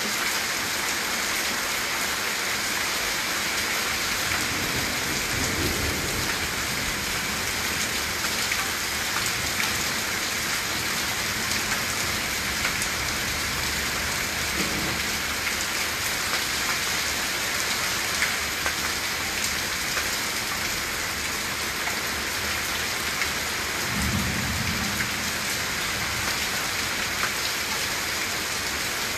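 Heavy rain pouring steadily onto the ground and surfaces during a storm. Two low rumbles rise under it, about five seconds in and again about five seconds before the end.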